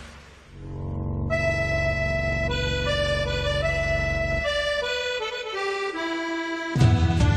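Instrumental music: a slow melody of long held notes stepping from one pitch to the next, with a louder, deeper part coming in near the end.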